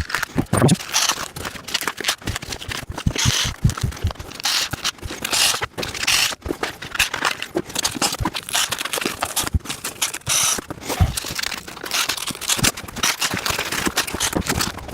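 Packing foam and cardboard being pulled off and handled, scraping and crackling continuously, with scattered knocks.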